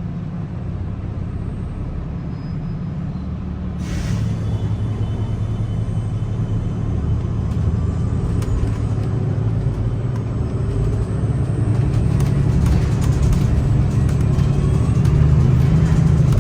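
Inside a 2022 Gillig hybrid transit bus: the Cummins B6.7 diesel and BAE hybrid drive hum steadily, with a short hiss of air about four seconds in. After the hiss the drivetrain sound builds steadily louder as the bus picks up speed, with a faint rising whine.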